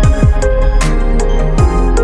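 Background music: an electronic beat with deep falling kick drums, sharp snare or hi-hat hits and sustained synth tones.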